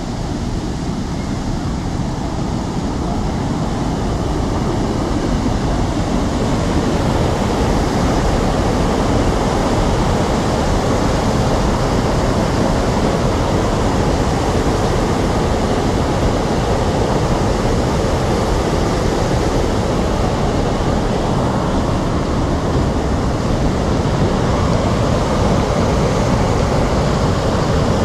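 Muddy floodwater pouring over a dam's spillway crest and crashing into the river below, a loud steady rush of water discharged to release excess. It grows louder over the first several seconds, then holds steady.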